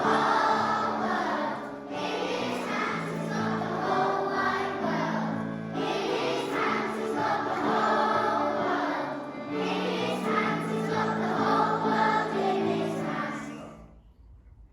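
Choral music: a choir singing over instrumental backing, which fades out shortly before the end.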